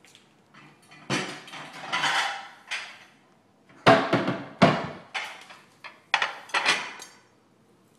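A serving utensil knocking and scraping against a bowl and plate as pasta is dished up, in a run of about eight short clatters.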